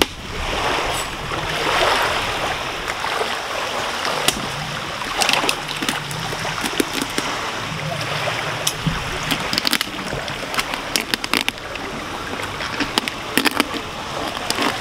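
Small waves washing onto a sandy shore, with scattered sharp clicks and knocks throughout.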